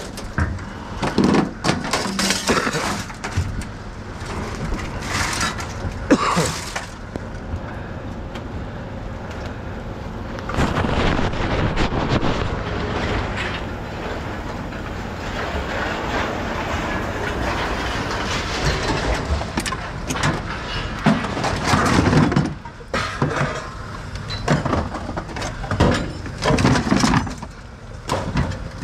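Scrap metal and appliance parts clattering and banging as they are thrown out of a steel pickup bed, a run of separate knocks and crashes. Through the middle stretch a steady rushing noise lies under the clatter.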